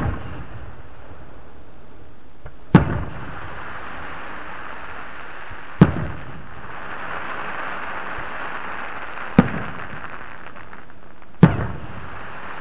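Aerial fireworks shells bursting overhead: four loud booms about three seconds apart, each with a short echoing tail. A steady hiss lies between them.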